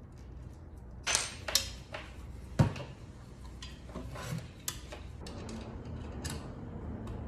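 Small metal mounting hardware (bracket, machine screws and Allen wrench) handled and set down: a string of irregular clinks and knocks, the sharpest about two and a half seconds in.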